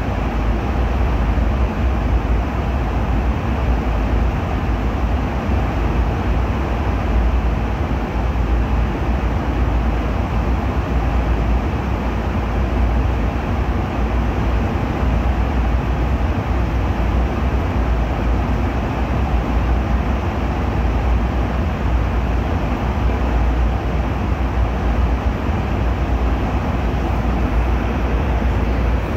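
Airliner cabin noise in flight: the steady drone of the engines and rushing air, heaviest in the deep bass and unchanging throughout.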